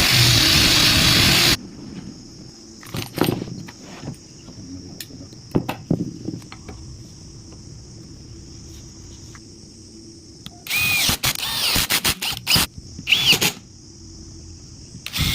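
A power tool working wood: a loud run that stops about a second and a half in, then scattered knocks and taps, then several short runs in quick succession near the end, some with a brief squeal.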